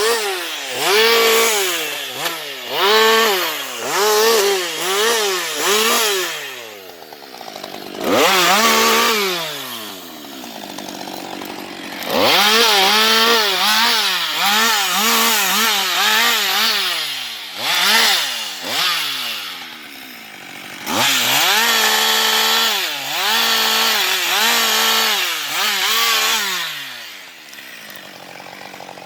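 Husqvarna 560XP single-cylinder two-stroke chainsaw revving: quick blips of the throttle, then long stretches held near full revs with small dips. Twice it falls back to idle between bursts, and it drops to idle near the end.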